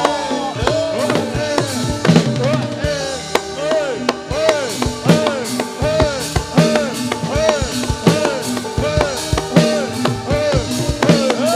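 Javanese gamelan music for a jathilan horse dance: drums beating a steady, driving rhythm over held metallic tones, with a repeating pattern of rising-and-falling pitched notes.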